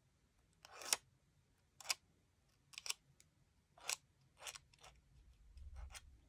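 Faint, short scratchy strokes of a flat-tipped marker swiped along the edges of cardstock snowflake die-cuts, about eight of them, roughly one a second.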